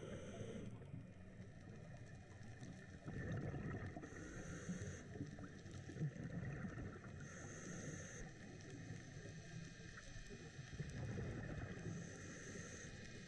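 Scuba diver breathing underwater through a regulator: three short hisses of inhalation a few seconds apart, and the low bubbling rumble of exhaled air.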